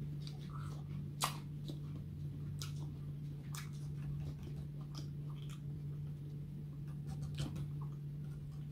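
Crunchy chewing of raw green apple: irregular crisp crunches and small wet clicks, the loudest about a second in, over a steady low hum.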